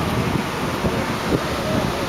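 Wind buffeting the microphone over the steady running noise of a river tour boat under way.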